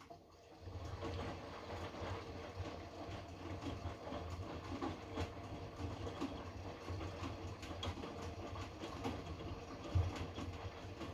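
Hotpoint washing machine drum starting to turn and then tumbling the load during the heating stage of a 90 °C cotton wash. The motor keeps up a steady rumble with a faint hum over it, and the tumbling load makes frequent small clicks and knocks.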